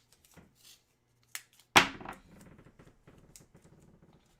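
Packaging being handled: a few light clicks, one sharp snap a little under two seconds in, then faint crackling and ticking.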